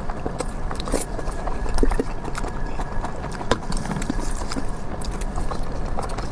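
A person chewing fatty pork with the mouth open: irregular wet, sticky clicks and smacks.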